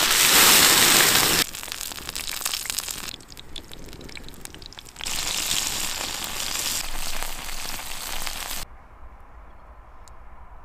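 Vegetable stalks and chillies frying in oil on a hot stone slab: a loud sizzle, then a stretch of crackling and spitting, then a second loud sizzle that cuts off suddenly about eight and a half seconds in, leaving a much quieter stretch with a few faint clicks.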